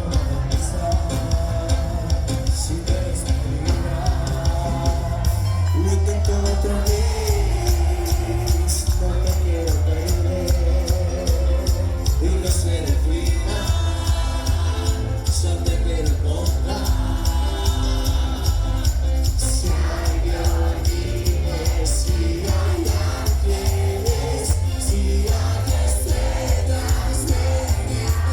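Live band music with a singing voice over a steady percussion beat; the bass comes in heavier about six seconds in.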